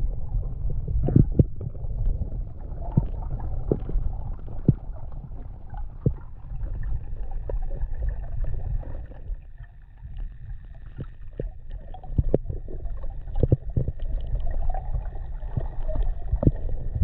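Underwater sound picked up by a camera in a waterproof housing: a steady low rumble of water with scattered sharp clicks and knocks. A faint steady high whine joins in the second half.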